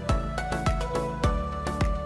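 Background music with a steady beat, about two drum hits a second under held melody notes.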